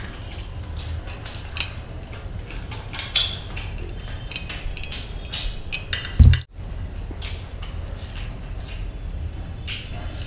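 Eating by hand: silver rings and bracelets clink and jangle against a metal wire-rack tray in scattered sharp clicks, with chewing and mouth sounds. A loud low thump comes about six seconds in, and the sound cuts out for a moment.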